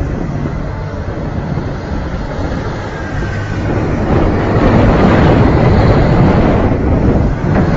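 Excavator's diesel engine running as the boom swings the raised bucket, mixed with heavy wind rumble on the microphone; it grows louder about four seconds in.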